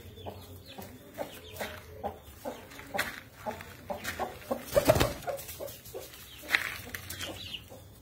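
Aseel chickens clucking, short calls coming several a second, with a loud low thump about five seconds in and high chick peeps near the end.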